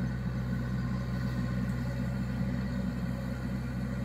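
Diesel engines of a JCB backhoe loader and a tractor, mired in a flooded field, running steadily with an even, deep hum.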